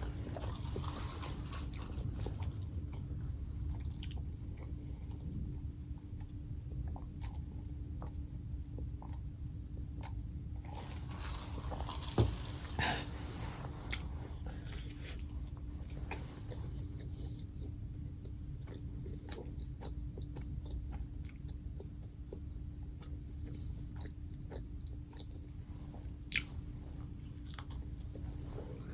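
Close-miked chewing and biting of McDonald's food, with scattered small clicks and crackles and two sharp taps, one about twelve seconds in and one near the end. A steady low hum runs underneath.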